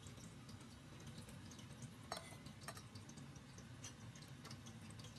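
Faint, irregular clicks and crackles of a small knife cutting through raw shrimp and fingers peeling the shell, over a steady low hum.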